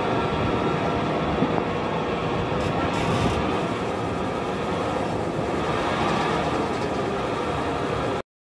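Zip-line trolley running along its steel cable: a steady rolling, whirring noise that cuts off suddenly near the end.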